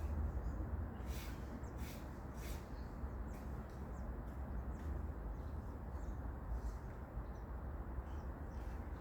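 Faint, short bird chirps, scattered a second or so apart, over a steady low rumble.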